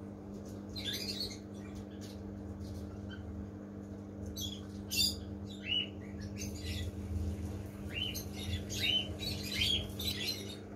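Birds chirping and squawking in scattered short calls, more of them in the second half, over the steady electric hum of the aquarium's filter pump.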